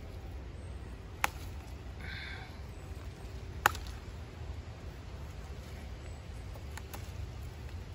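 Green pepper stems snapping as the peppers are picked off the plant by hand: two sharp snaps, about a second in and a little over three and a half seconds in, then fainter clicks near the end, over a low steady rumble.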